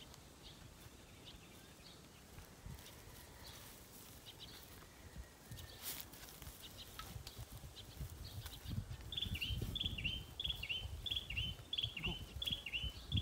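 A bird chirping over and over: short, downward-slurred high chirps, nearly three a second, starting about nine seconds in. Faint scattered chirps come before them, and a low rumble sits underneath from about eight seconds in.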